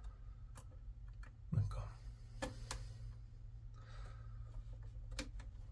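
Scattered small clicks and taps of model-railway track parts being pushed together by hand, over a steady low hum.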